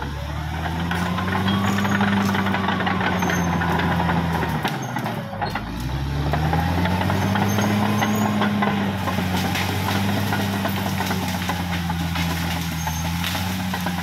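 Caterpillar D6R XL bulldozer's diesel engine working, its pitch swelling and falling back twice with a short dip about five seconds in.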